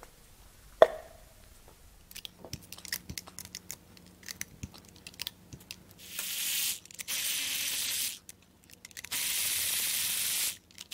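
Cordless ratchet running in four short bursts of about a second each, backing spark plugs out of the cylinder head. Before the bursts come a knock and a few seconds of light clicks and rattles as parts are handled.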